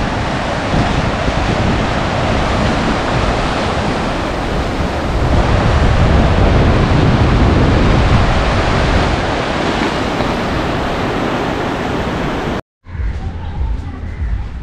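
Sea surf washing over rocks and the shore, a loud steady rush with wind rumbling on the microphone. Near the end it cuts off abruptly to a much quieter outdoor background.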